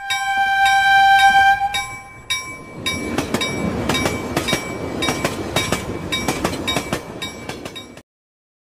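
A train horn sounds one long steady blast for about two seconds. A passenger train then passes close by, its wheels rumbling and clacking over the rail joints, while a bell rings alongside. The sound cuts off suddenly about eight seconds in.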